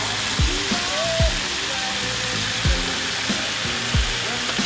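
Banana lumpia shallow-frying in hot oil in a skillet: a steady sizzle. Background music with a deep, falling bass beat plays over it.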